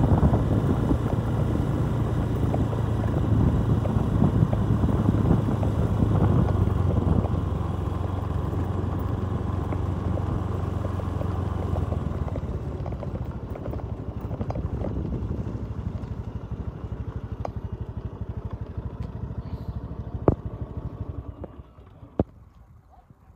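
Motorcycle engine running while riding, easing off about halfway through to a softer, even putter, then dying away near the end, with two sharp clicks as it stops.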